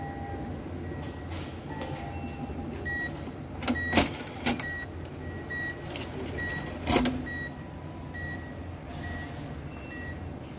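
Cash-deposit ATM running with a steady mechanical hum, sounding a short high beep over and over, about one to two a second, while its cash slot is in use. Sharp clunks from the machine's mechanism come about four seconds in and again about seven seconds in.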